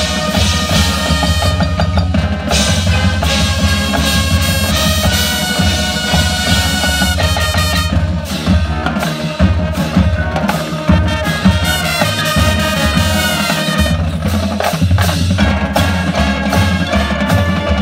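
High school marching band playing an 80s pop-rock arrangement: brass over a drumline and front-ensemble mallet percussion, with a bass line stepping through notes underneath.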